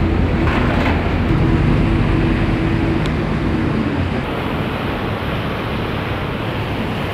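Steady low drone of a ship's engines, giving way about four seconds in to an even rushing of wind and churning water from the ship's wake.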